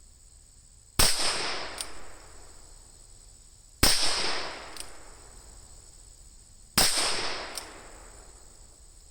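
Three shots from a Ruger Super Wrangler single-action revolver firing .22 Magnum, about three seconds apart. Each is a sharp crack with a long fading ring-out, and a much fainter crack follows each one under a second later.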